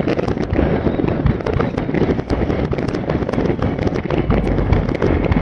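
Fireworks going off: a dense, unbroken run of crackling pops and bangs.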